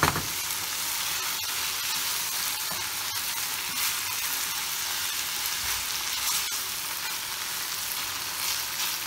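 Minced meat with peppers and tomato paste sizzling in oil in a frying pan, stirred with a wooden spoon, with a few light clicks of the spoon against the pan.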